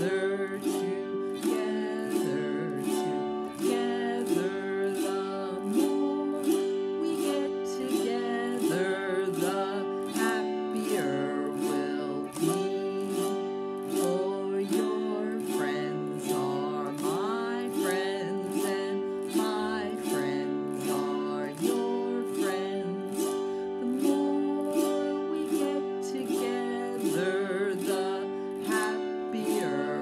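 Autoharp strummed in a steady rhythm, about one and a half strums a second, with a woman singing along.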